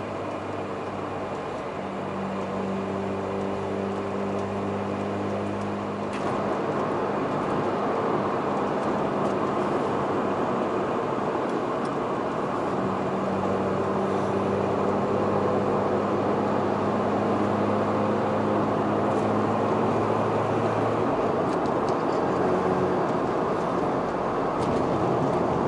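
Mazda RX-8's twin-rotor Wankel engine running steadily with a low, even hum, getting louder about six seconds in and holding there.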